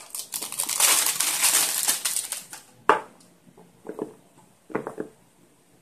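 Clear plastic wrap from a smartphone box crinkling and crackling for about two and a half seconds. Then a sharp click and a few softer knocks as the cardboard box is handled.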